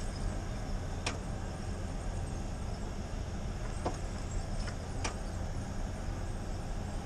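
1995 Ford Ranger engine running with a steady low rumble on a cold start in deep cold, a few light clicks about one, four and five seconds in.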